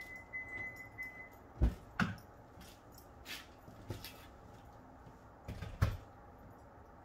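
Scattered knocks and metallic clinks of hand tools and parts being handled during work on the car, about half a dozen, the loudest around two seconds in and again near six seconds. A faint high tone is heard during the first second.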